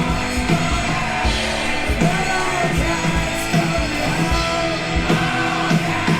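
Rock music with a steady drum beat, guitars and sung, partly yelled vocals.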